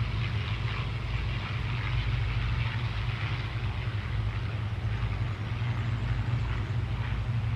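A steady, low machine-like rumble with an even hiss over it, without a break.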